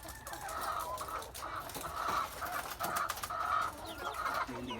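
Layer hens clucking in a steady run of short calls, about two a second.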